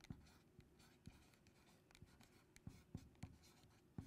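Faint strokes and light taps of a marker writing on a presentation board, a string of short marks a few tenths of a second apart.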